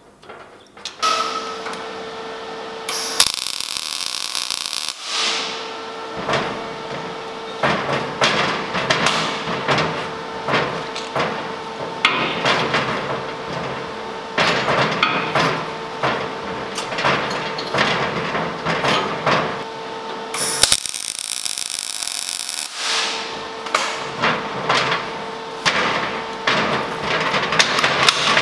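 Metalworking tool noise: a steady hum under dense, irregular crackling and clicking, broken twice by a few seconds of loud hissing.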